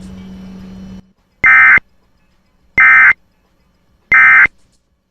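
Emergency Alert System end-of-message data signal: three short, loud, buzzing digital tone bursts about 1.3 seconds apart, closing the Amber Alert broadcast. Before them, a steady low hum cuts off about a second in.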